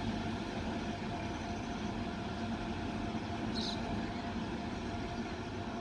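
WAG-9 electric locomotives humming steadily with a faint held tone, the sound of their cooling blowers running. A short hiss of air comes about three and a half seconds in.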